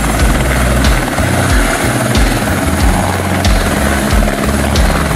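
Helicopter close by, its rotor and engine running steadily as it hovers, with music underneath.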